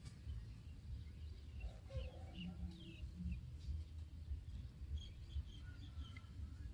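Outdoor ambience of small birds chirping: a few short chirps about two to three seconds in and another run about five to six seconds in, over a low steady rumble.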